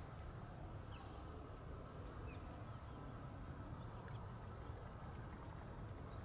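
Faint, scattered short bird chirps over a steady low rumble.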